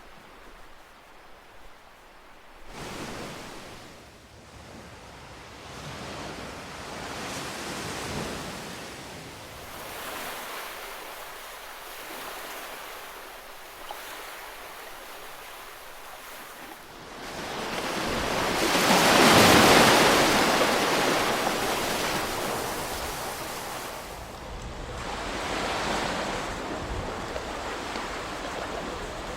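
Ocean waves breaking and washing in, rising and falling in repeated surges every few seconds; the biggest wave breaks about two-thirds of the way through.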